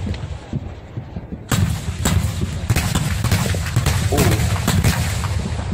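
Air defence weapons firing. About a second and a half in, a dense, rapid string of sharp cracks starts over a low rumble, as rockets and rounds go up in quick succession.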